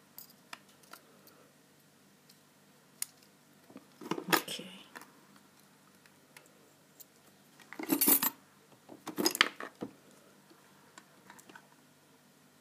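Small metal parts of a padlock and lock-picking tools clicking and clinking as they are handled, with two louder metal clatters about eight and nine and a half seconds in.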